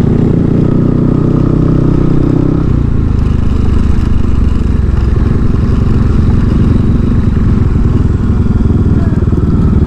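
Motorcycle engine running while riding, with wind and road noise. A steady engine tone is clear for the first few seconds, then gives way to a rougher rumble.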